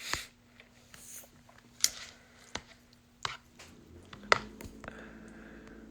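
Eating utensils clicking and tapping against a ramen bowl while noodles are cut up, about five sharp taps spread out, the loudest a little after four seconds in. A steady low hum comes in shortly before that tap and carries on.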